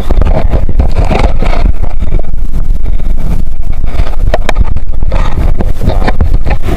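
Wind buffeting the microphone, a loud low rumble, with scattered short knocks and clicks.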